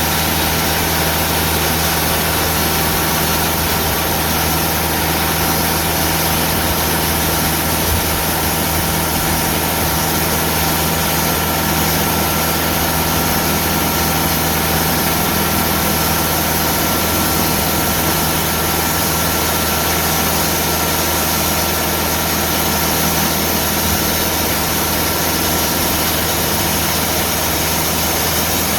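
Diesel engine of a Timberking band sawmill running steadily while the band blade cuts very slowly through a wide, very hard slab of aged live oak.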